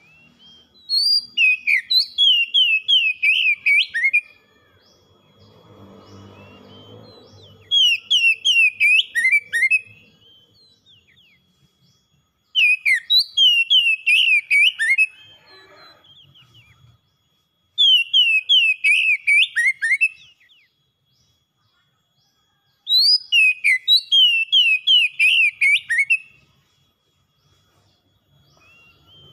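Oriental magpie-robin singing: five repeated phrases of quick, high, down-slurred whistled notes, each two to three seconds long, with pauses of a couple of seconds between them.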